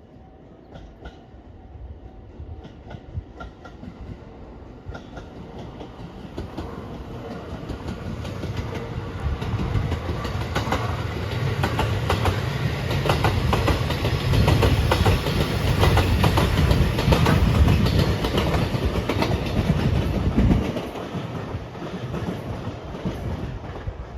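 Electric train approaching and passing over a level crossing, its wheels clattering over the rail joints and rumbling. It grows steadily louder, is loudest in the middle, and drops off sharply near the end as the last car passes.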